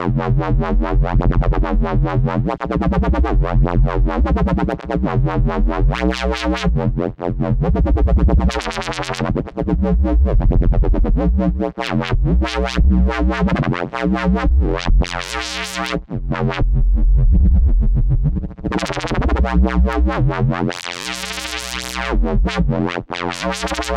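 Dubstep wobble bass from Ableton Live's Simpler, built on a hybrid square-sawtooth wave and played as single gliding notes from a MIDI keyboard. A tempo-synced LFO sweeps its band-pass filter so the bass wobbles rapidly, and the cutoff is swept up a few times so the tone turns bright and buzzy.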